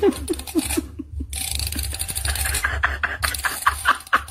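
Plastic comb scraping over a cat's fur in quick repeated strokes.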